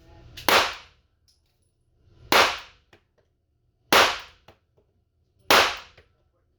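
Handgun fired four times at a slow, even pace, about one shot every one and a half to two seconds, each shot a sharp crack with a short ringing tail.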